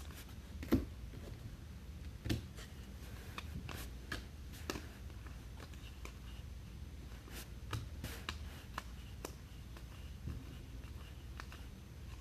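Topps Chrome trading cards and packs being handled: scattered soft clicks and rustles as cards are flipped and sorted, over a low background hum.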